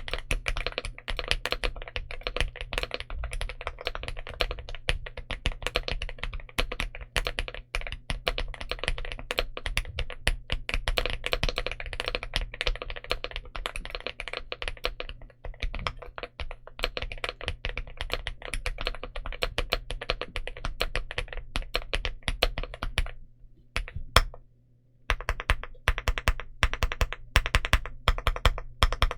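Rapid, continuous typing on a mechanical keyboard fitted with linear frankenswitches: Gateron Smoothie housings and two-stage springs with Gateron Yellow stems. The keys click in a dense stream, stop for about two seconds near the end, then the typing resumes.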